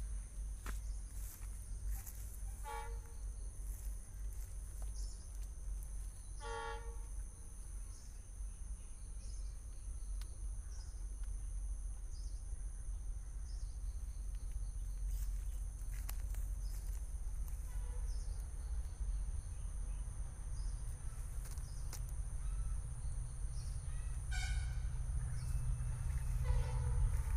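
Distant approach of a WDP4D diesel locomotive: a low rumble that grows slowly louder toward the end, over a steady high drone of insects. A few short pitched calls sound twice early on and again near the end.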